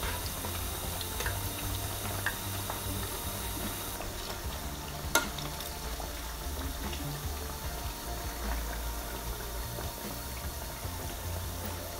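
Hash brown patties deep-frying in hot canola oil: a steady sizzle with small crackles and pops, and one sharp click about five seconds in.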